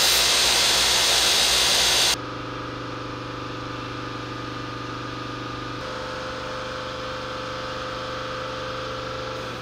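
Belt grinder grinding a piece of metal, a loud, even grinding noise that cuts off about two seconds in. After that a quieter steady machine hum runs on.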